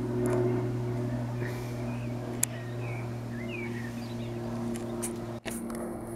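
Single-engine Cessna propeller plane droning overhead, a steady low engine hum. A few bird chirps come through in the middle, with a sharp click about two and a half seconds in.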